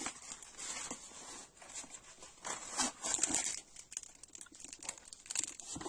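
A cardboard product box and its packaging being handled and emptied: irregular rustling and scraping with light clicks and knocks, loudest about halfway through.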